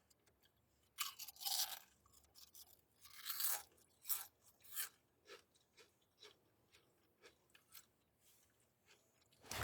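Crunchy food being chewed close to the microphone: a few loud crunching bites in the first half, then quieter chewing with small wet clicks, and another loud crunch at the very end.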